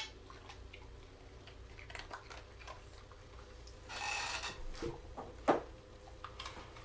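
Faint rubbing and scattered small clicks of handling or movement in a small room, with a short hiss about four seconds in and a sharp knock about five and a half seconds in.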